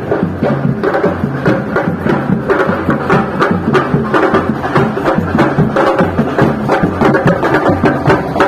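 Music with prominent percussion: many sharp hits in quick succession over a steady low beat.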